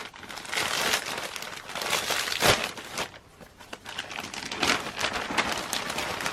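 Packaging being handled, crinkling and rustling in irregular bursts, with one sharper, louder crackle about two and a half seconds in.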